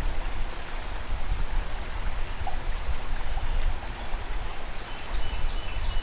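Steady rush of flowing river water, with a low, buffeting wind rumble on the microphone.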